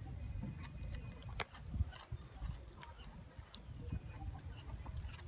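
A macaque drinking from an aluminium drink can: faint scattered clicks and taps of the can, the sharpest about a second and a half in, over a low steady rumble.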